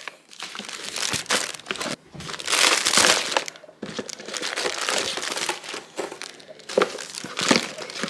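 Plastic treat bags and packaging crinkling and rustling as hands rummage through a cardboard box of dog toys and treats. The rustling is busiest about three seconds in.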